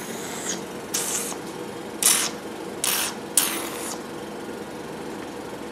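Hydrodermabrasion facial machine's vacuum and water pump running with a steady hum, while its suction handpiece on the skin gives four short hisses in the first four seconds.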